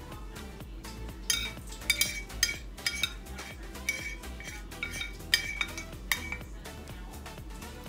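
A metal spoon clinking against a dish as dessert is scooped up: a run of sharp, ringing clinks starting about a second in and stopping near the end.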